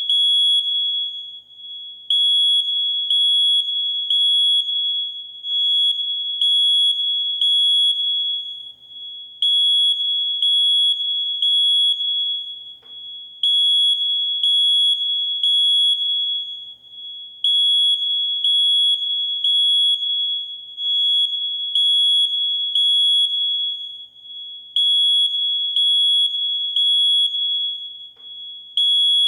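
Smoke alarm sounding its full alarm: a loud, high, steady-pitched beep in groups of three, each group followed by a short pause and repeating over and over. This is the temporal-three pattern a smoke detector gives when it senses smoke.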